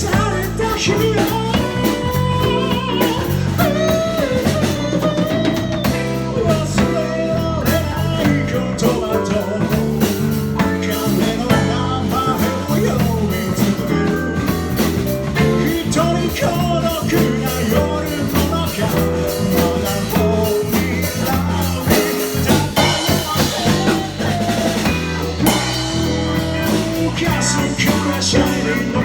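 A band playing a rock/pop song with drum kit and guitar, in a passage with a wavering melodic lead line and no lyrics picked up.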